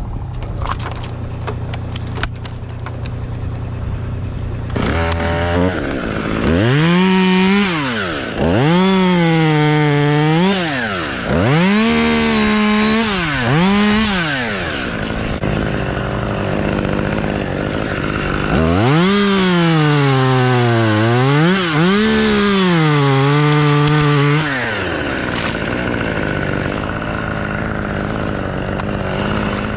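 Two-stroke chainsaw revved in repeated full-throttle bursts, its pitch swinging up and down with each squeeze of the trigger, in two runs of several bursts each. Between the runs and for the first few seconds, a lower, steady engine sound keeps running.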